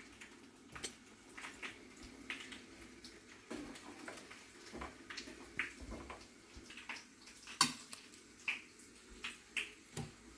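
Light clinks and taps on a plate as fried bondas are set down on it, scattered through, with one sharper clink about three-quarters of the way through.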